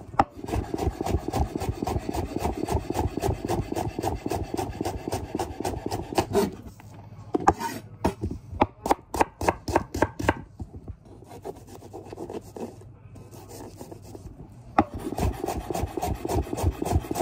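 Chef's knife dicing shallots on a wooden chopping board. It starts with fast, even chopping strokes, then a brief pause and a run of slower, separate chops. After a quieter stretch, fast chopping starts again near the end.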